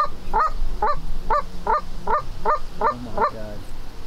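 Canada goose honks in a quick, even series, about three a second, stopping shortly before the end.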